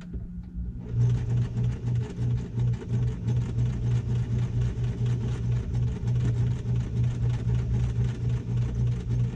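Electric sewing machine stitching a straight-stitch seam, starting about a second in and running at a steady speed: motor hum with the needle's quick, even pulsing.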